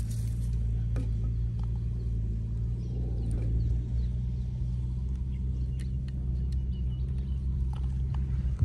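A small engine running steadily at constant speed, a low even hum with a few faint clicks on top.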